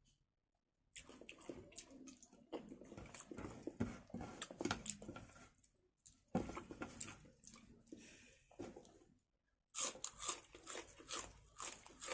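Close-up eating sounds: wet chewing, with mouth smacks and small clicks, broken by three short silences, at the start, about halfway and near the end.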